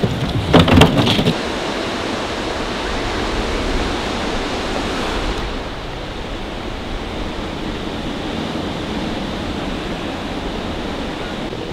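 A wooden board and a body crash down wooden stairs: a quick cluster of loud knocks and clatter in the first second or so. Then a steady rushing hiss of outdoor noise with no other events, dropping slightly about halfway through.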